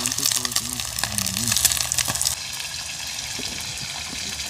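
Sprats frying in hot oil in a pot over a charcoal fire, sizzling and crackling with many small pops; the sizzle cuts off suddenly about two and a half seconds in, leaving a quieter steady background.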